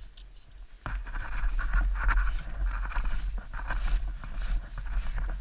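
Snowmobile under way, setting off sharply about a second in: engine and track running, with heavy wind buffeting on the microphone. The riders put a vibration down to a drive belt that is far too tight.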